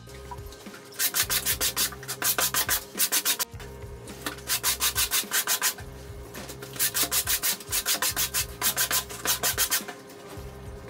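A wet, detergent-soaked shirt being scrubbed by hand on a tile floor: quick back-and-forth rubbing strokes, about six or seven a second, in spells of a second or two with short pauses between.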